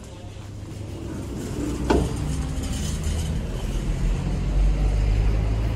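Low rumble of a road vehicle, growing louder, with a short sharp click about two seconds in; it cuts off suddenly at the end.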